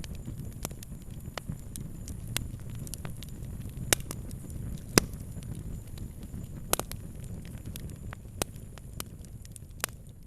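Wood fire burning with a low steady rumble and irregular sharp crackles and pops, the loudest pops about four and five seconds in.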